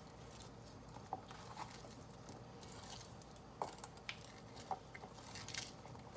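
Faint wet squishing with a few light clicks as a hand tosses batter-coated raw potato fries in a bowl.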